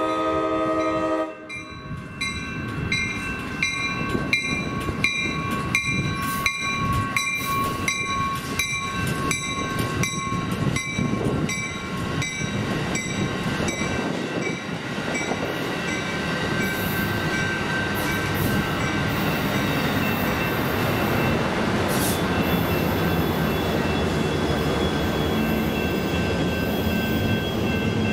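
Amtrak California bilevel passenger train passing: its horn sounds and cuts off about a second in. Then a bell rings about twice a second for some ten seconds over the steady rumble of the passing cars.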